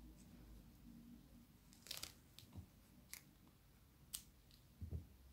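Faint handling sounds of crochet work: a few short, sharp clicks from the metal crochet hook, yarn and scissors, one of them a scissors snip on a yarn strand about four seconds in, then a soft low thump just before the end.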